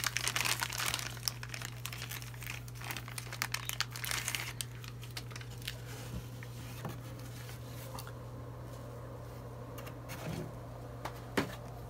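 Clear plastic bag crinkling as a nylon camera strap is pulled out of it, densest for the first four or five seconds. After that comes quieter handling of the strap with a few soft clicks, over a steady low hum.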